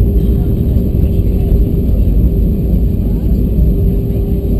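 Loud, steady low rumble in the cabin of an Airbus A320-214 rolling along the runway after touchdown, ground spoilers up, with a steady mid-pitched hum running through it.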